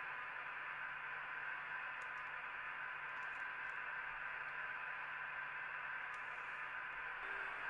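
Steady, even hiss with a faint low hum underneath, unchanging throughout.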